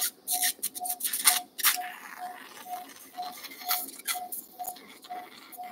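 Anaesthesia patient monitor beeping steadily, a short mid-pitched beep about twice a second, one beep with each pulse of the anaesthetised dog. Scattered sharp clicks and scrapes of steel surgical instruments sound over it.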